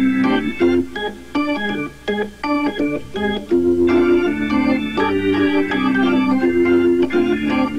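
Organ music of sustained chords with quick notes played over them, going sparser and quieter for a moment about two seconds in.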